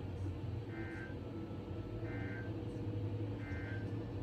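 Steady low hum with three short beeps spaced about a second and a half apart.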